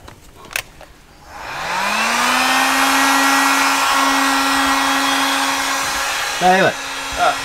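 Handheld electric fan-motor tool, aimed at a freshly painted brake caliper. Its whine rises in pitch about a second and a half in, then holds steady under a rush of blown air.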